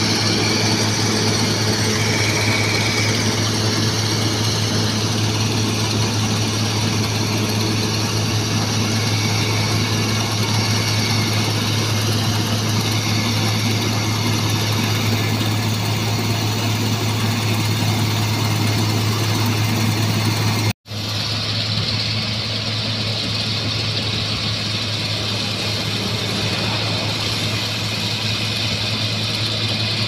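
Laverda 3790 combine harvester running at working speed while cutting and threshing wheat: a steady low engine drone under the hum of the threshing machinery. The sound breaks off for an instant about two-thirds of the way through, then carries on slightly quieter.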